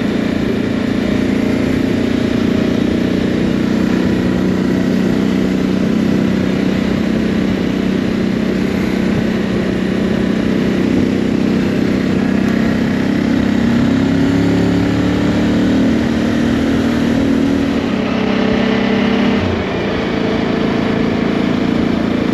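Motorcycle engine running steadily at motorway cruising speed, under a constant rush of wind and road noise. Near the end the engine note falls slightly and briefly dips in loudness.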